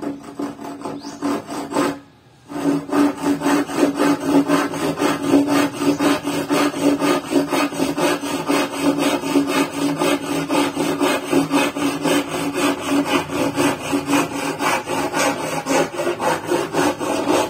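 Handsaw cutting through a wooden board in quick, even back-and-forth strokes, with a short pause about two seconds in before steady sawing resumes.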